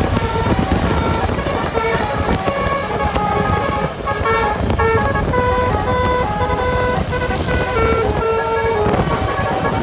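A bus's basuri 'telolet' musical horn playing a quick tune of short, separate notes that jump up and down in pitch, over a low rumble of engine and traffic.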